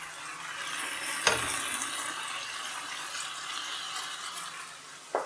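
Chicken mince sizzling steadily in a nonstick frying pan, with a light knock about a second in and another near the end.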